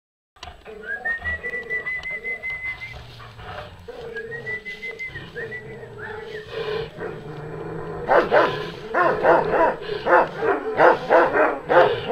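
Šarplaninac shepherd dogs barking, in a fast run of loud barks from about eight seconds in. Before that there is quieter activity, with a long, high whistle-like tone heard twice.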